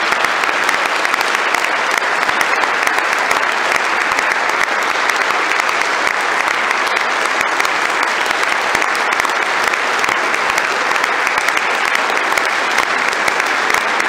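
A congregation applauding: many people clapping in a steady, sustained round of applause.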